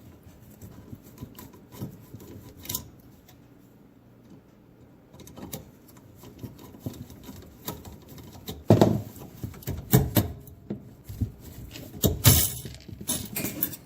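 Scattered clicks, knocks and rubbing of hand work on the dishwasher's electrical junction box as the supply wire is pulled out of it. Sparse at first, then louder and busier knocks for the last five seconds or so.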